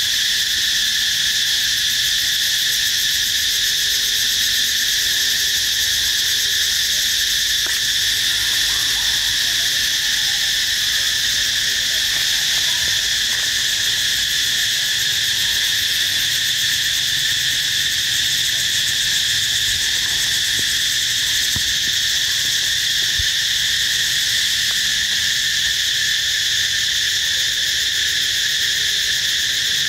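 A loud, steady chorus of insects, a continuous high-pitched drone that holds unchanged throughout.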